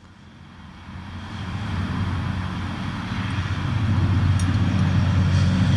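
An engine approaching: a low, steady hum that grows from faint to loud over about four seconds and then holds.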